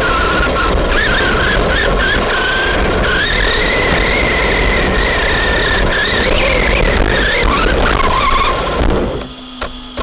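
Arrma Big Rock V3 RC monster truck's electric motor and drivetrain whining, its pitch rising and falling with the throttle, over a rough hiss of the truck running. Near the end it drops away sharply to a quiet steady hum as the truck stops.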